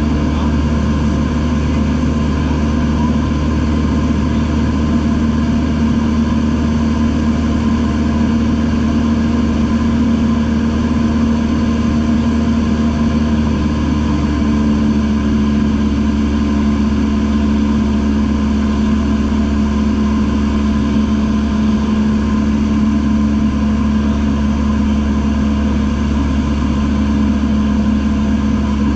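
Single-engine light airplane's piston engine and propeller droning steadily in cruise, heard inside the cockpit. The pitch shifts slightly about halfway through.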